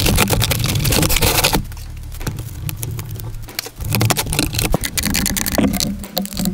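Blow-molded plastic tool case scraping against its cardboard box as it slides out, then scattered clicks and knocks as the case is handled, set down and opened.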